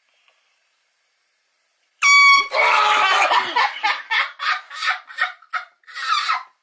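A handheld canned air horn blasted suddenly about two seconds in, a loud, piercing note lasting about half a second. It gives way to several seconds of loud, choppy yelling and commotion from the startled sleeper.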